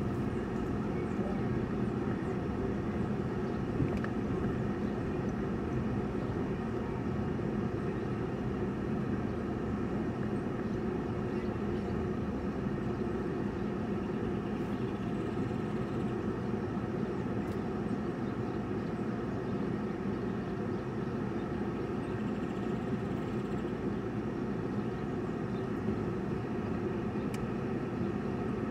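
Steady engine and road noise of a car moving slowly in traffic, heard from inside the cabin as a constant low hum.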